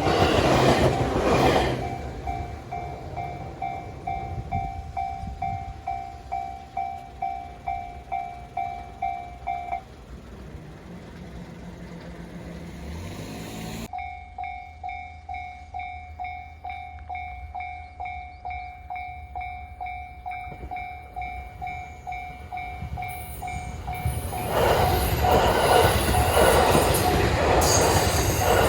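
Japanese railway level-crossing warning bell ringing its "kan-kan" ding about twice a second. A train runs past loudly at the start, and another passes over the crossing near the end. The bell stops for a few seconds in the middle, then starts again.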